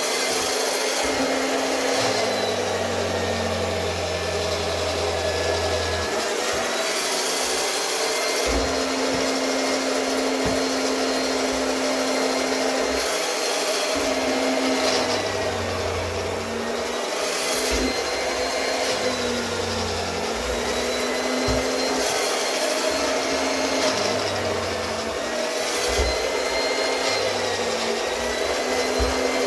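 Octa RC-100 handheld round-knife electric cloth cutter running with a steady high whine, the pitch sagging and recovering every few seconds as the spinning blade is pushed through the fabric.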